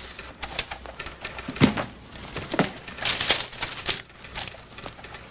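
Papers rustling and things being handled on an office desk, in irregular clicks and rustles, with a heavier knock about a second and a half in.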